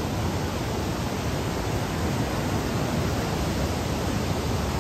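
Montmorency Falls, an 83-metre waterfall, heard close up: a steady, even rush of falling water.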